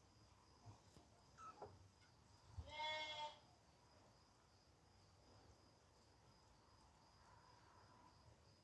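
A cat meows once, a drawn-out meow lasting under a second, about three seconds in, after a short, faint falling squeak about a second and a half in.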